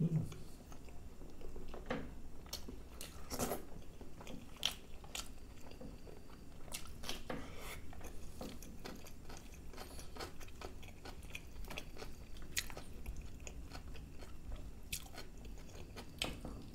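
Close-miked eating sounds of a man chewing chicken masala curry and naan: irregular wet chewing with short, sharp mouth clicks and smacks.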